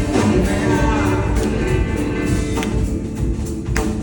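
Live rock band music, loud and steady, recorded from the audience at a concert: an instrumental stretch between sung lines.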